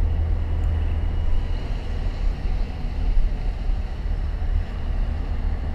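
Steady low rumble of a vehicle's engine and road noise, heard from inside the cab while driving.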